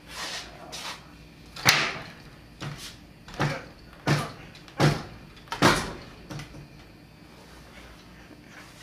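Repeated banging on a door: about six heavy knocks less than a second apart, the first the loudest, then it stops.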